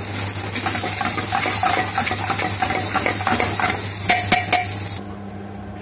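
A metal spoon stirring and tossing fried rice in a black metal frying pan over a gas flame, scraping the pan with a steady frying hiss. It ends in a few sharp clanks of spoon on pan about four seconds in, and the sound drops away suddenly a second later.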